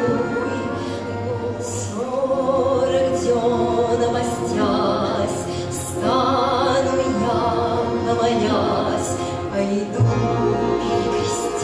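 A female singer in an operatic style, with a wide vibrato, accompanied by an orchestra; new sung phrases begin about two and six seconds in, over held low orchestral notes.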